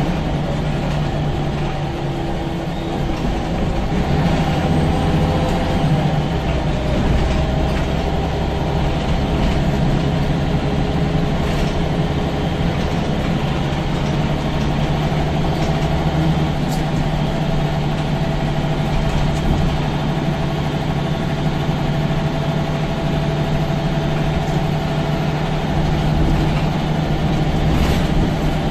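Scania L94UB bus's rear-mounted diesel engine running under way, heard inside the saloon: a steady low drone with a higher whine that comes in around the middle, and a few light rattles and knocks.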